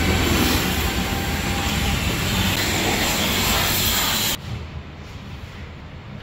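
Pressure-washer jet spraying water onto a car's body, a loud, steady hiss. It cuts off abruptly about four seconds in, leaving a much quieter background.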